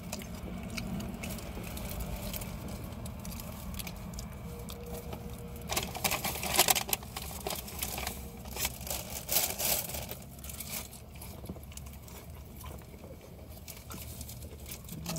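Food packaging being handled: a paper or plastic wrapper crinkling and tearing in a cluster of crackles for a few seconds around the middle. Under it runs the steady low hum of a car engine idling.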